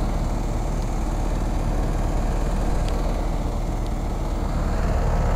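York packaged heat pump running with its outdoor coil frozen over in solid ice and not yet in defrost: a steady low hum from the compressor and fan.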